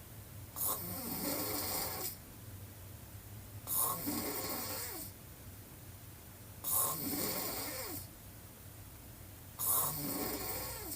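A woman snoring with her mouth wide open: four snores about three seconds apart, each starting abruptly and falling in pitch as it goes.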